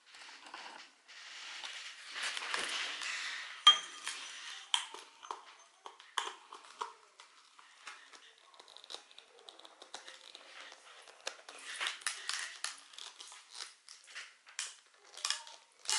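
Plastic wrapping rustling and crinkling, then irregular sharp clicks and clinks as the metal pole sections of a Swiffer floor mop are handled; the loudest click comes a little under four seconds in.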